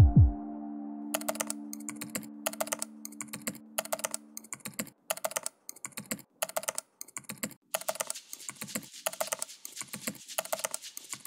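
Keyboard typing sound effect: rapid, irregular key clicks that keep time with text being typed out on screen. It opens with a deep falling bass hit from the background music, and a held chord that dies away about four seconds in.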